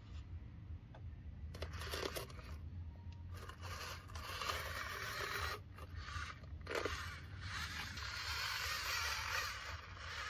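Gritty scraping and rustling of loose material worked by a radio-controlled model construction vehicle, coming in uneven stretches from about a second and a half in, over a steady low hum.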